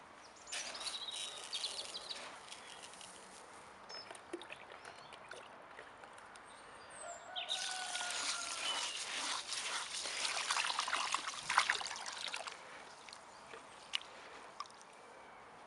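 Water pouring from a jug into a bowl of raw rice for washing, a steady splashy gush for about five seconds in the middle, after a shorter burst of similar noise near the start; a hand then swishes the rice in the water. Birds chirp faintly.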